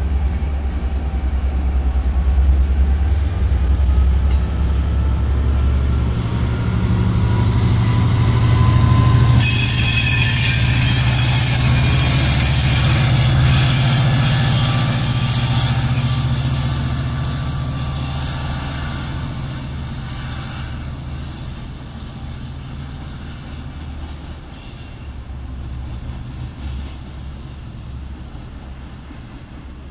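Amtrak Piedmont passenger train pulling away, with the low steady drone of its rear pushing diesel locomotive, an EMD F59PHI. Thin rising wheel squeals come first, then a loud screech of wheel squeal and rail noise from about ten to sixteen seconds in as the locomotive passes. The sound fades as the train recedes.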